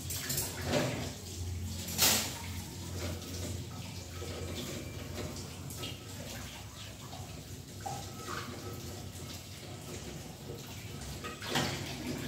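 Water from a tap running into a kitchen sink while dishes are washed, with a few sharp clatters of dishes, the loudest about two seconds in and another near the end.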